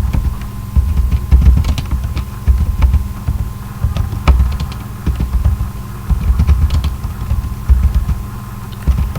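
Computer keyboard being typed on at an irregular pace, with sharp key clicks over deep thuds and a steady hum underneath.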